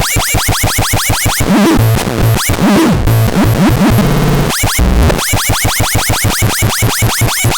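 Electronic noise synthesizer output from a Noiseratu: a fast, even train of short chirping zaps, about eight a second, breaks about 1.5 seconds in into a chaotic stretch of glitchy tones and low bass stabs, then returns to the chirping train about 4.5 seconds in.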